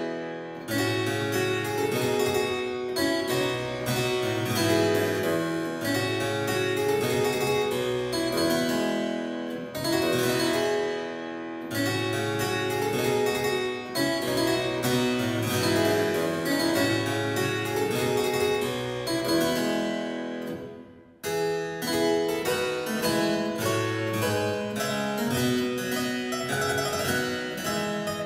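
Solo harpsichord playing, plucked notes in quick succession, with a short break about two-thirds of the way through before the playing picks up again.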